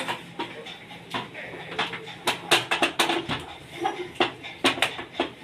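Hand potato masher knocking and scraping against a steel kadhai in repeated, irregular metallic clanks as boiled potatoes and peas are mashed into a smooth paste.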